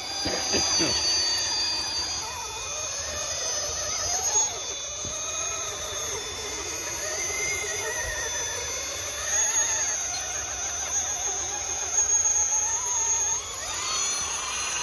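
Electric motor and geared drivetrain of a 1/10-scale RC rock crawler whining as it crawls up steep rock, the pitch wavering up and down with the throttle over a steady high-pitched whine.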